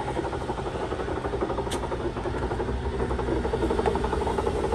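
2001 Chevy Suburban driving, with a steady rough drone from the driveline underneath, which the owner takes for a bad wheel bearing. A single short click about a second and a half in.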